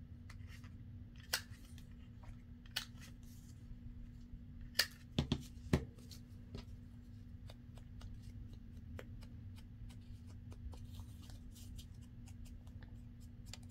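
Handheld corner rounder punch snapping through the corners of a paper tag: several sharp clicks a second or two apart in the first half, two of them heavier, followed by fainter ticking and paper handling.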